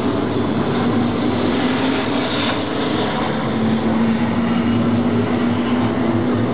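Race car engines running together as a pack of cars laps the oval track, a loud steady drone.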